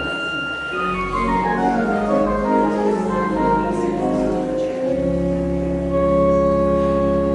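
Church organ playing: sustained chords with a falling run of notes, then a deep bass note comes in under a long held chord about five seconds in.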